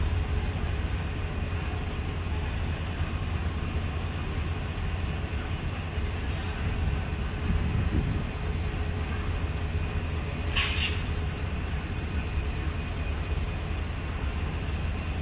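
Indian Railways express coaches rolling past on arrival, a steady low rumble of wheels on the track. One short high-pitched squeak comes about two-thirds of the way through.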